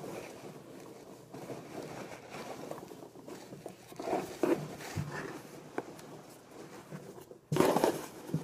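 Hands rummaging through the loose popcorn packing filler inside a cardboard shipping box: continuous rustling with scattered small clicks, and a louder burst of rustling near the end.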